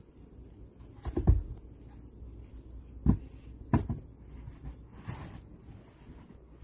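Three dull thumps, a little over a second in, at about three seconds and just before four seconds, with faint rustling between them.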